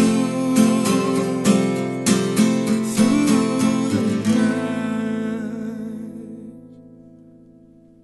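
Acoustic guitar strummed in a steady rhythm: the closing strums of the song. About four seconds in, the final chord is left to ring and fades away.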